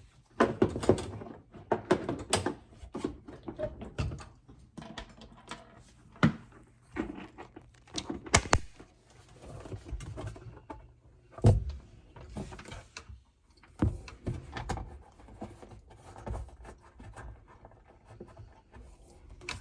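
Irregular clunks, knocks and clatter of a dishwasher's filter assembly being fitted back into the bottom of the tub, with a few sharper knocks among quieter handling noise.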